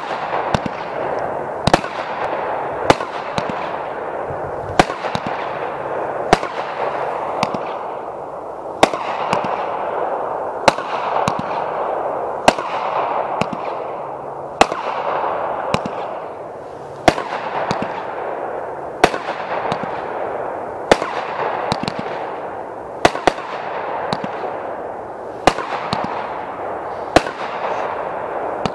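Big Fireworks "The Great One" 500-gram aerial repeater cake firing shot after shot. Sharp bangs come about every one to two seconds over a steady hiss that fills the gaps between them.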